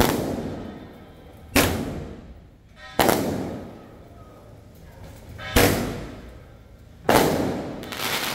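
Single firecrackers going off one at a time: five sharp bangs a second and a half to two and a half seconds apart, each trailing off over about a second.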